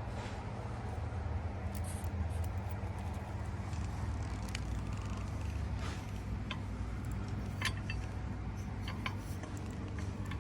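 A steady low hum with scattered light clicks and clinks, more of them in the second half.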